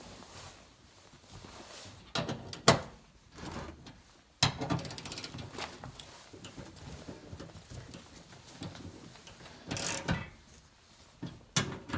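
Hand tools and metal parts clicking and knocking as bolts are driven into a pickup tailgate to fix a new latch handle, with a stretch of rapid ratchet clicking about four seconds in.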